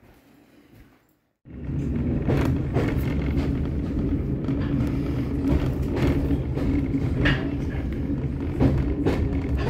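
Railway carriage running along the track, heard from inside: a steady low rumble with irregular knocks and clatter from the wheels. It cuts in suddenly about a second and a half in, after near quiet.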